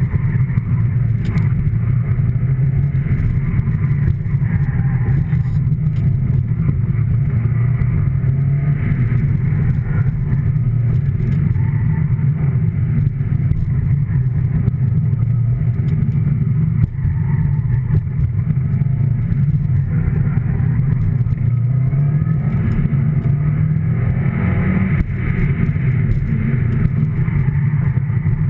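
A car running, a steady low rumble that holds the same level throughout.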